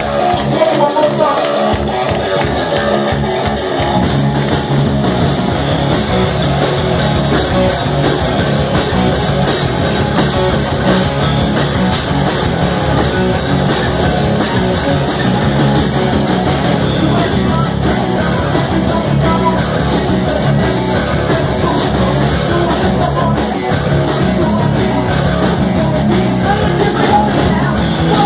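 Live rock band playing loud: electric guitar, bass guitar and drum kit, with a voice singing. The drums come in about two seconds in, after a guitar-only intro.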